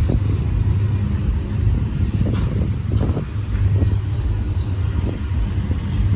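Double-stack freight train cars rolling past with a steady low rumble, broken by a few sharp clunks of wheels over rail joints.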